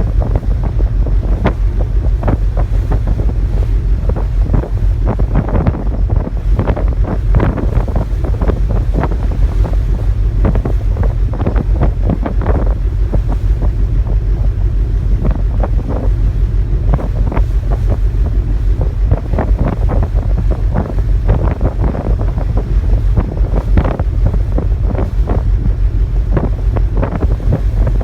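Strong wind buffeting the microphone: a constant low rumble broken by frequent short crackling gusts.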